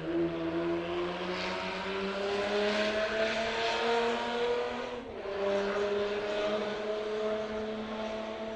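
Rally car's engine accelerating hard, its pitch climbing steadily. About five seconds in the pitch drops briefly as it shifts up a gear, then it climbs again and fades toward the end.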